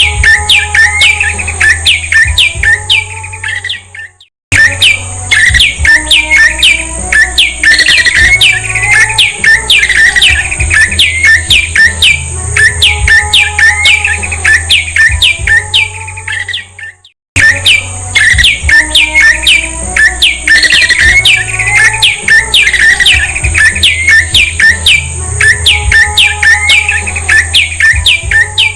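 Prenjak (prinia) calls: a fast run of sharp, falling chip notes, about three a second, over a steady low hum and a thin high whine. The calls cut out abruptly twice for a moment, as a looped recording restarts.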